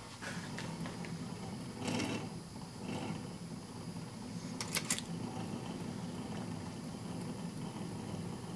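1951 RCA Victor 45-EY-4 record changer running after its motor was oiled: a steady low hum, a noisy rattling burst about two seconds in and a quick cluster of sharp clicks around five seconds in. The turntable is not running right.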